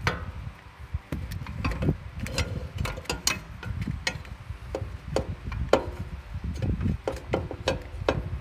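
Irregular metallic clicks and light knocks from a rear suspension part on a BMW i3 being worked into place against the axle and subframe, over low handling rumble.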